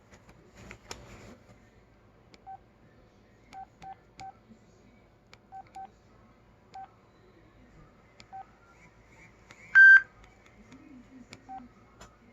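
LG Lotus phone keypad beeps: about a dozen short beeps at one pitch, at irregular intervals as buttons are pressed. A brief clatter comes about a second in, and one louder, higher tone lasting under half a second comes near ten seconds in.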